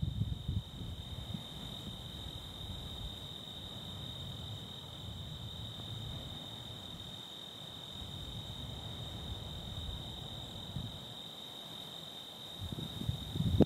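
Steady, unbroken high-pitched chorus of night insects, typical of crickets, over a low rumble that grows louder near the end.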